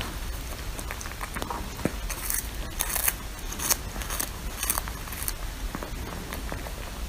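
A cat chewing and biting on a small fish, with irregular crunching and crackling bites.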